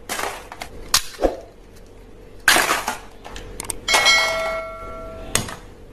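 Objects being handled: a few sharp clicks, a short clatter, then a metallic ring about four seconds in that is cut off by a click a little over a second later.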